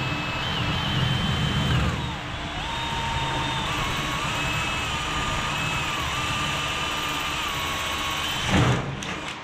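Cordless drill running against the wall, its motor whining steadily with the pitch stepping up and down as the trigger is eased and squeezed. A short swoosh near the end.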